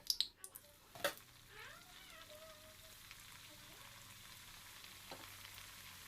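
Potato smiley snacks deep-frying in hot oil in a kadai: a steady sizzle, with two sharp knocks in the first second or so.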